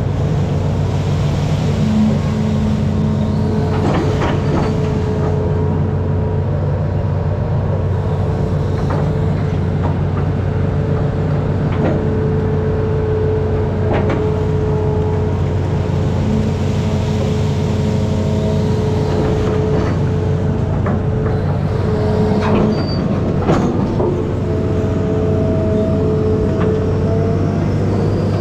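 Amphibious excavator's diesel engine running steadily under load, with a whine that shifts slightly in pitch as the hydraulics work and a few sharp clanks from the arm and bucket.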